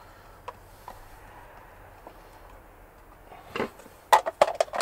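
Faint handling for the first few seconds, then, about four seconds in, a quick run of sharp clicks and knocks as kitchenware (a plastic tub, utensils and crockery) is handled on the counter.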